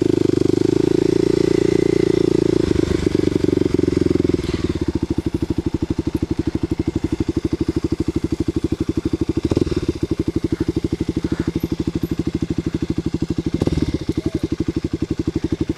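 Kawasaki KLX250SF's single-cylinder four-stroke engine, fitted with a Muzzy exhaust. It pulls steadily for about four seconds, then drops to a slow, even putter of separate firing beats as the bike creeps along at low speed. Two short throttle blips come in the second half.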